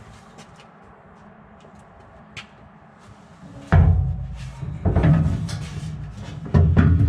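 Light clicks, then three heavy hollow thumps with a deep ring in the second half, and smaller knocks between them: a Mini's petrol tank being manoeuvred and set into place in the car.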